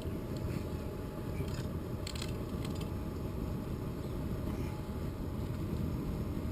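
Homemade used-oil-fired blast furnace burning with a steady low rumble, with a few faint clicks about two seconds in.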